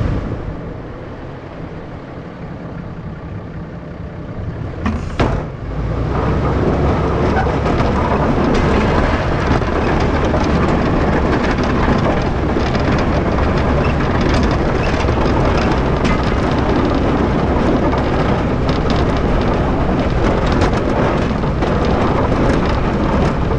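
Snow plow truck on the move, heard from a camera mounted at its front: a steady rush of engine, tyres, plowed snow and wind on the microphone. It is quieter for the first few seconds, a short clatter comes about five seconds in, and then it grows louder and rougher, with many small crackles.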